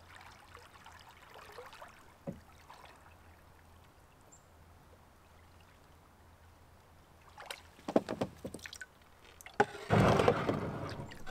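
Canoe on the water with water sloshing against it. There are a few sharp knocks around the middle, then a louder splashing rush near the end.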